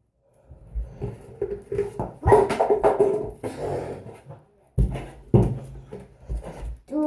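Dog whimpering and whining, with two thumps about five seconds in.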